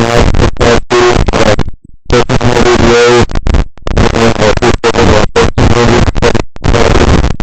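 Loud, harsh static from a faulty microphone, chopping on and off in short chunks with a brief dropout about two seconds in. A garbled, distorted tone like a voice wavers through it.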